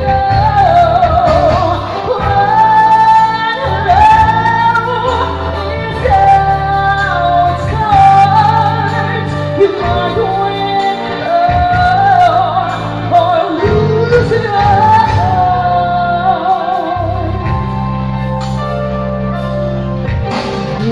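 A woman singing a slow song into a microphone over instrumental accompaniment, holding long notes with vibrato.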